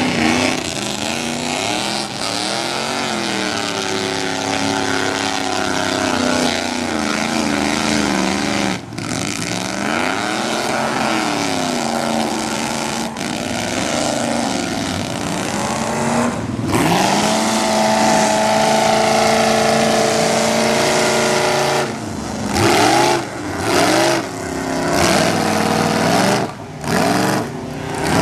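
Lifted mud trucks' engines revving hard under load, pitch swinging up and down. A steadier high run follows about two thirds of the way through, and near the end come short repeated revs that cut in and out.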